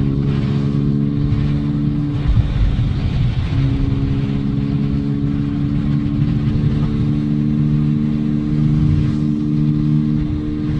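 Beta RR 125's four-stroke single-cylinder engine, dB killer removed, running steadily under way. The note breaks up briefly about two seconds in, then runs steady again.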